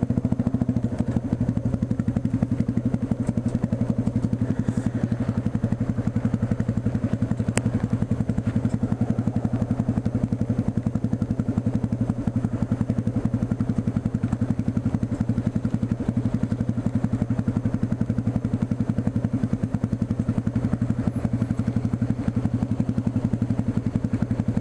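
Yamaha motorcycle engine running steadily at low revs, with even firing pulses and no revving.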